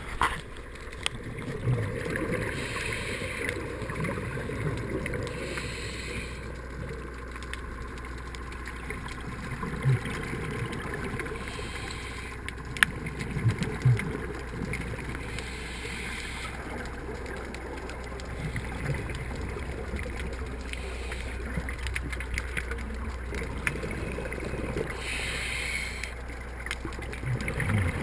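Muffled underwater noise heard through a camera's waterproof housing: a steady low rumble, with short bursts of hiss every several seconds and scattered low knocks.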